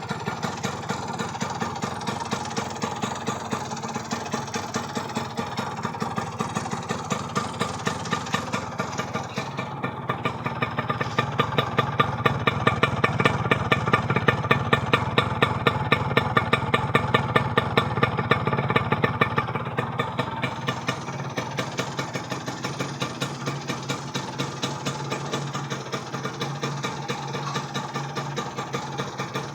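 Kawasaki GTO 125 single-cylinder two-stroke engine running at idle with a steady rapid pulse. It picks up a little and runs louder from about ten seconds in, then settles back to idle around twenty seconds in.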